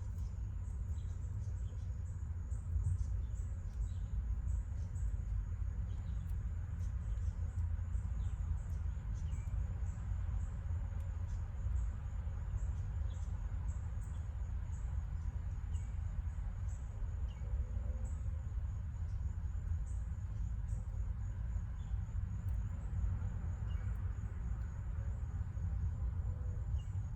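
Insects trilling with a thin, high, pulsing tone over a steady low rumble.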